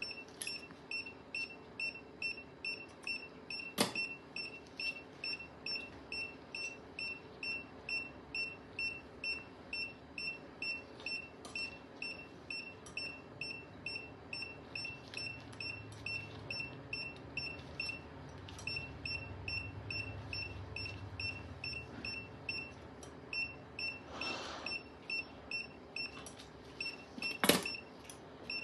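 Surgical patient monitor beeping with each pulse beat: a short, high beep repeating evenly a little under twice a second. Two sharp knocks come about 4 seconds in and near the end, and a brief rustle comes about 24 seconds in.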